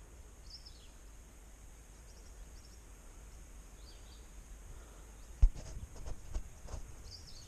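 Outdoor ambience: a steady high insect drone with a few short bird chirps. About five and a half seconds in comes a sharp knock, followed by a few softer knocks.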